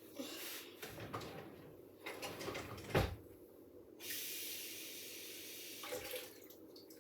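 Kitchen tap running for about two seconds and then shut off, after some handling noise and a sharp knock about three seconds in.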